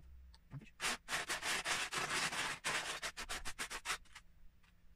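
A hand rummaging through a pile of loose Lego bricks in a plastic storage tub, the small plastic pieces clattering and scraping together for about three seconds.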